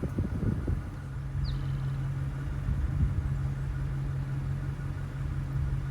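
Car engine idling with a steady low hum, and a few low rumbles in the first second. A single short bird chirp comes about one and a half seconds in.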